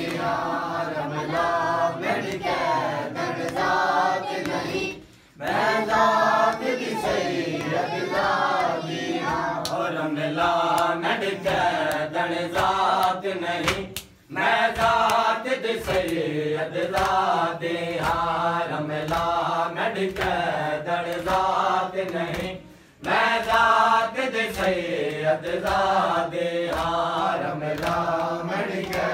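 A group of mourners chanting a Punjabi noha in unison, with sharp strokes of matam (hands beating on chests) keeping time under the chant. The chanting breaks off briefly about every nine seconds between lines.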